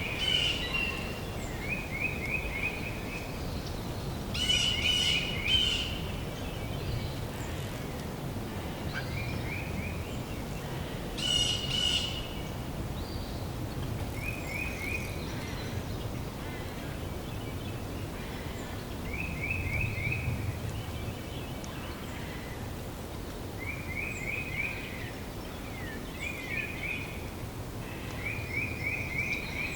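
Spring forest ambience with songbirds singing: one bird repeats a short, rapid trill of a few notes every couple of seconds, and louder, higher calls come about five seconds in and again about eleven seconds in. A steady low rumble of background noise runs underneath.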